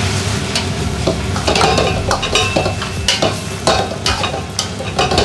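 Sweet-and-sour chicken and pineapple sizzling in a wok as it is tossed and stirred with a metal ladle, the ladle clanking against the wok many times over a steady sizzle.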